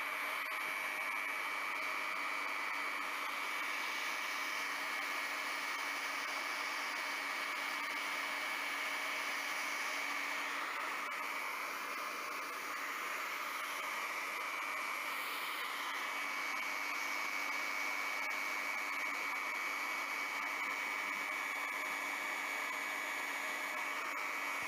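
Hot-air plastic welder running, its fan blowing a steady rush of air with a steady high whine.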